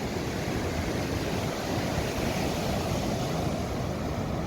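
Strong wind buffeting the microphone over the steady wash of rough surf.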